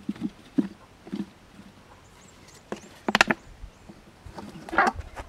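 Clear plastic water bottle being knocked and shaken to tip a snake out. There are a few light hollow knocks in the first second, a quick rattle of plastic clicks about three seconds in, and a short scrape near the end.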